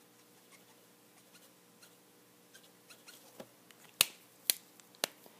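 Copic alcohol markers being handled as one marker is swapped for another: a few faint ticks, then three sharp plastic clicks about half a second apart, over a faint steady hum.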